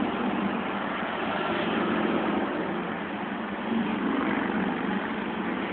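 Motorcade vehicles, including an ambulance and a police car, driving steadily past: engine and tyre noise, a little louder about four seconds in.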